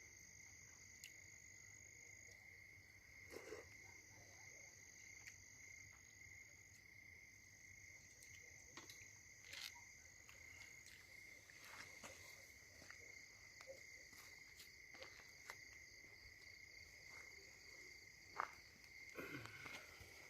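Crickets trilling faintly and steadily, with a few soft clicks and knocks scattered through.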